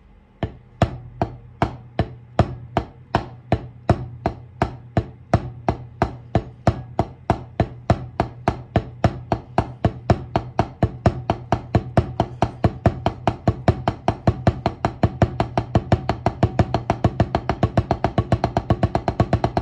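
Wooden drumstick striking a rubber practice pad in a steady run of double strokes. The strokes start slowly and speed up gradually to a fast, even roll near the end.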